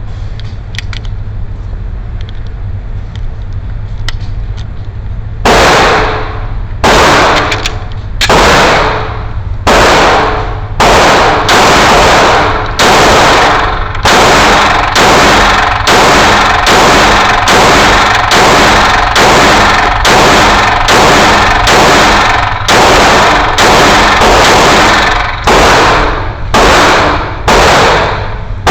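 Glock 19 Gen 6 9mm pistol fired in steady slow succession, a little faster than one shot a second, each report ringing out briefly. The shots begin about five seconds in, after a low steady rumble, and no shot is missed or broken off by a stoppage.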